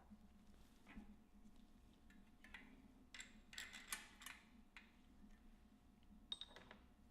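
Faint, scattered light clicks and ticks of a metal bearing press being fitted to a bicycle front hub shell to press in a new sealed bearing.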